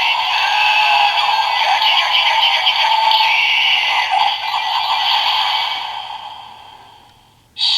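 Small built-in speaker of a Kamen Rider Build DX transformation toy playing its electronic transformation music and sound effects, thin and tinny, fading out near the end before a short loud burst of new toy audio.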